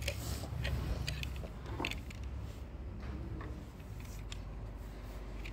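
Paintbrush strokes on a painted metal chest lid: soft, irregular scratchy brushing with small clicks, over a steady low rumble.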